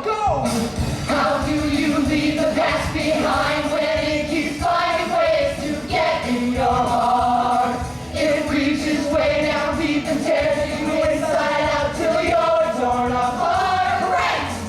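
Musical-theatre chorus of several voices singing long held notes together with musical accompaniment.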